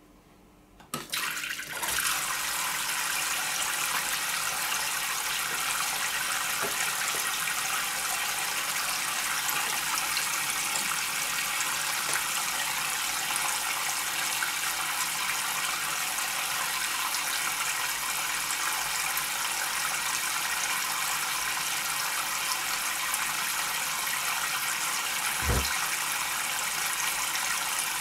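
Thin streams of water raining from a DIY fountain's cotton-wool cloud and splashing into the shallow water tray below: a steady splashing that starts suddenly about a second in. A single low thump near the end.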